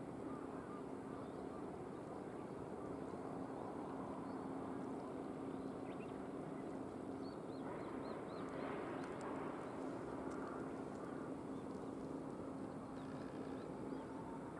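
Distant harbour and shipyard ambience: a steady low engine hum over a wash of background noise, with a few short bird chirps about halfway through.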